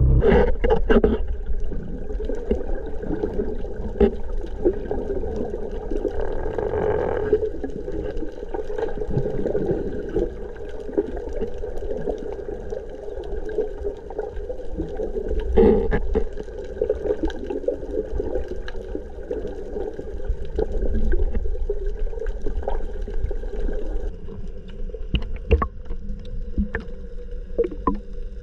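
Underwater sound picked up by a camera mounted on a speargun: a steady droning hum with scattered sharp clicks and crackles, and a short hiss about seven seconds in.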